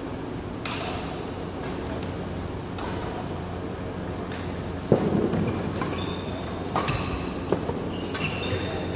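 Badminton rally: sharp racket strikes on the shuttlecock, the loudest about five seconds in, with short shoe squeaks on the court floor and a steady low hum in a large echoing hall.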